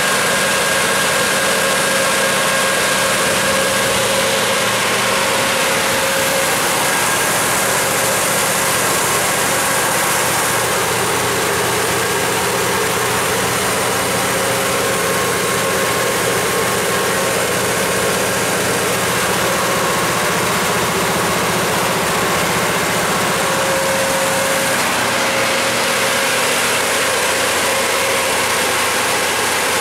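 GM 8.1-litre V8 natural gas engine of a Kohler 125 kW generator set running steadily at its governed 1800 rpm, the generator holding 60 Hz. An even engine drone with several steady tones, no change in speed.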